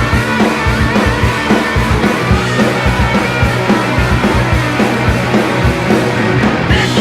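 Hardcore punk band recording playing an instrumental passage: distorted electric guitars, bass and a fast, driving drum beat.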